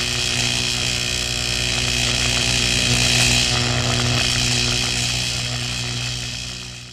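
Electric arc sound effect: a steady buzzing hum with a crackling hiss, swelling about halfway through and fading near the end.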